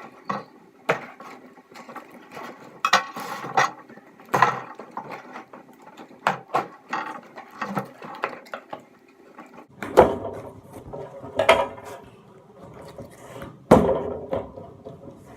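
A cardboard package being opened and its contents handled: irregular knocks, clicks and scrapes, some louder thumps around ten and fourteen seconds in.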